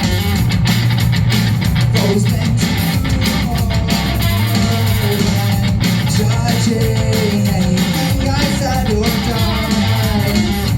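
Live rock band playing loud, guitar-driven music, with electric guitar over a heavy bass and drum beat.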